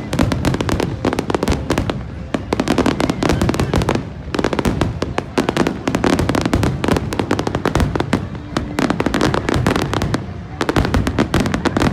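Fireworks display: a dense, rapid barrage of crackling pops and bangs that eases off only briefly a few times.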